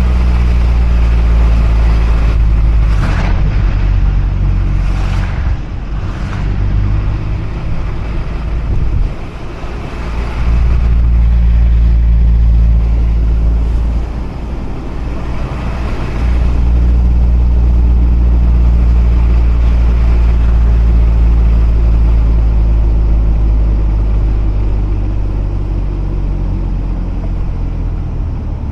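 Mazda RX-8's two-rotor rotary engine and tyres droning steadily while driving. The low engine note falls away and comes back a few times, about three seconds in, again near ten seconds and around fourteen seconds.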